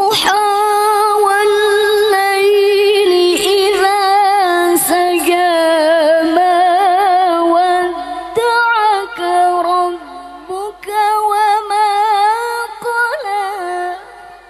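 A woman reciting the Quran in the melodic tilawah style into a microphone. A long, held phrase wavers with rapid ornamental trills, then breaks into shorter phrases that end just before the close.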